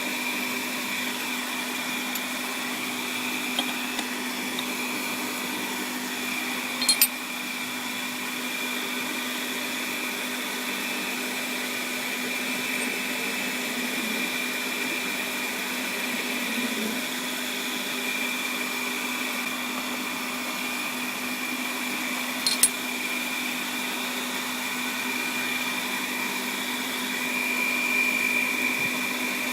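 Small metal lathe running steadily with a constant motor whine. Two short sharp clicks sound, about seven seconds in and again about twenty-two seconds in.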